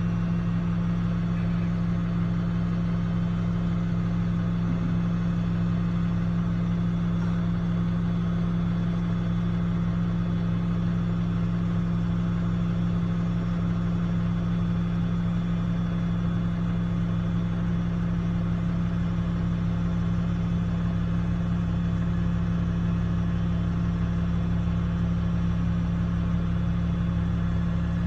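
Heavy diesel engines of a tracked excavator and an articulated dump truck running steadily at a constant, even hum while the truck is loaded.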